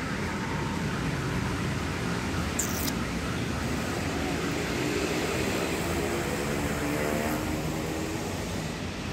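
Steady outdoor background noise with a distant traffic hum.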